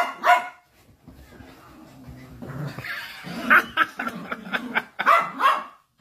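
Small dog yipping and barking in short high calls: two at the start, then a quick run of them in the second half.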